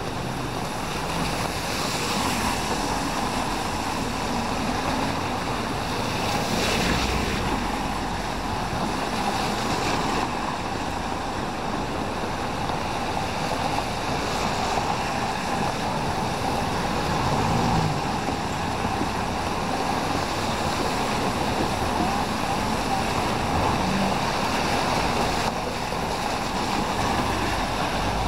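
Steady hiss of rain and tyres on a wet street, swelling briefly a couple of times as vehicles pass.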